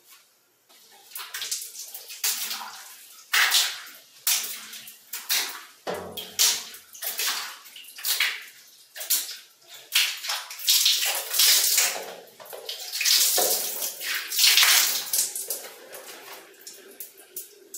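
Clean water thrown against a glass shower screen in repeated splashes, roughly one or two a second, rinsing off a paste of baking soda, detergent and alcohol.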